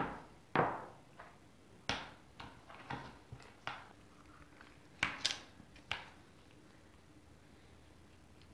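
Light clicks and knocks of small objects being handled on a workbench, about ten over the first six seconds, as a small metal tin of black leather filler is opened. Then near quiet while the filler is scooped out.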